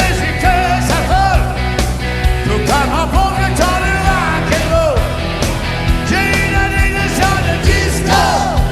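Loud, upbeat 1960s-style rock and roll music with a steady drumbeat, a driving bassline, and bending lead notes.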